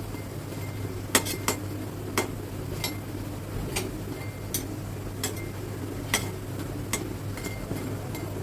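A metal utensil clinking against an iron kadai as fritters frying in oil are turned over: about ten sharp clinks, roughly one a second, at an uneven pace.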